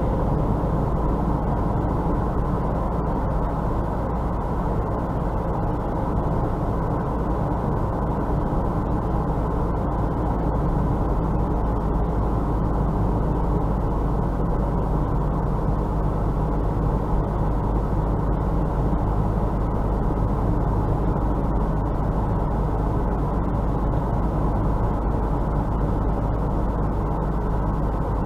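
Steady driving noise inside a car's cabin at about 60 km/h, mostly tyre and road noise on a snow-covered road, heard through a dashcam's microphone.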